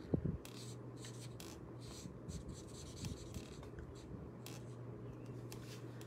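Stampin' Blends marker tip drawing short strokes across cardstock: a series of faint, irregular scratchy strokes as the books in a stamped image are coloured in line by line.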